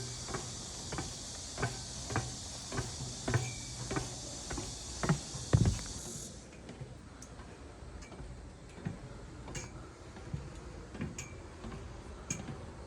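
Footsteps and sharp clicks on a steep rocky mountain trail, about two a second, with a heavier thump about five and a half seconds in, then fainter and more scattered. A steady high hiss runs underneath and cuts off suddenly about six seconds in.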